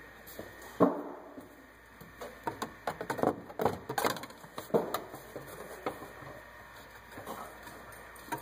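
Parts being handled in a pickup's engine bay during reassembly. A sharp knock comes about a second in, followed by a few seconds of quick clattering knocks and scrapes, then a few lighter ones.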